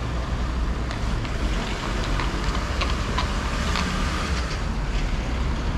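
City street ambience: a steady low rumble of traffic with scattered sharp clicks over it.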